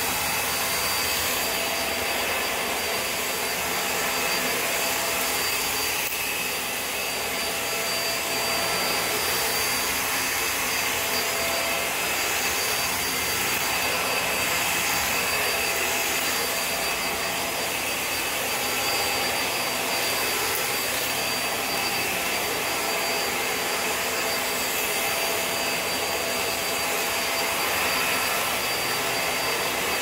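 Hoover React Powered Reach Premier cordless stick vacuum running steadily as it is pushed across a hard floor: an even rush of air with a steady high whine from the motor.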